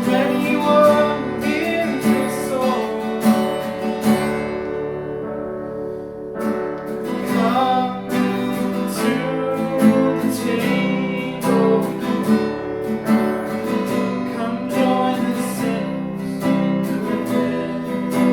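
Acoustic guitar strumming steadily in a worship song.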